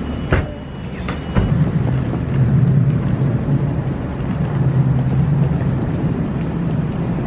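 Steady low drone of an idling vehicle engine, with two short knocks in the first second or so.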